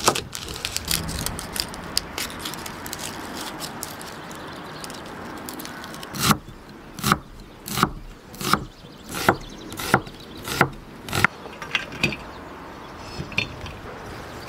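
Chopping on a wooden board: about eight even strokes a little under a second apart. Before them come light scattered clicks and clinks of handling.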